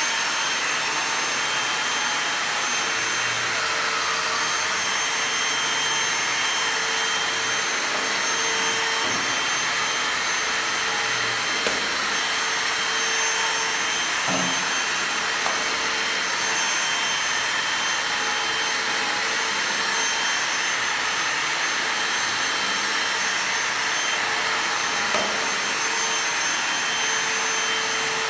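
Cordless stick vacuum cleaner running steadily with a high whine, its floor head being run over a cat's fur. A few faint knocks.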